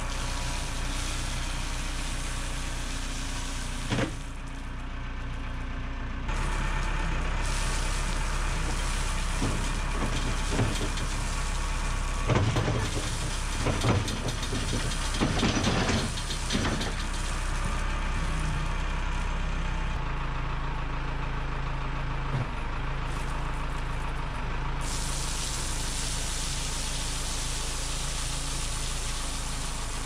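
A heavy-equipment engine running steadily, with a series of knocks and clatter in the middle. Its note changes abruptly a few times.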